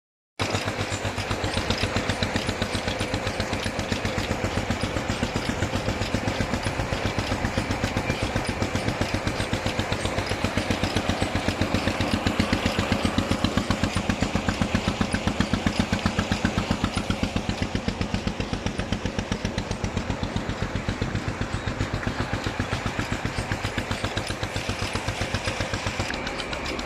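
An engine running steadily with a fast, even thumping beat, growing a little louder around the middle.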